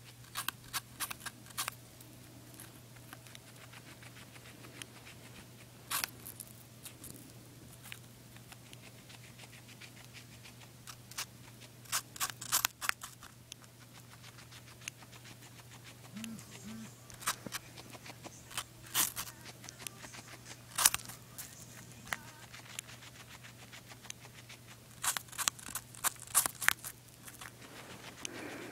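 Guinea pig biting and chewing a piece of apple: irregular crisp crunches, some in quick clusters, over a low steady hum.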